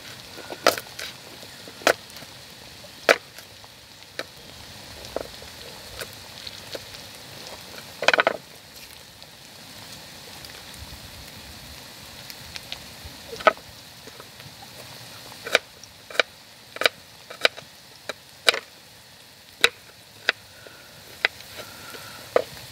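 Knife knocking on a chopping board as garlic is cut, in slow, irregular strokes with a quicker run about eight seconds in. Under it, a faint steady sizzle from the pan of frying onion.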